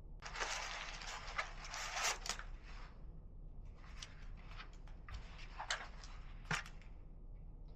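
Shoe packaging being handled: two spells of rustling and crinkling, the first louder, with a few sharp clicks and taps through them.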